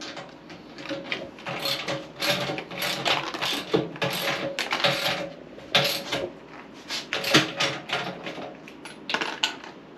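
Irregular metallic clicking and clattering of hand tools: a wrench working on bolts inside the stainless-steel drum of a chicken plucker, and loose sockets rattling in a plastic case.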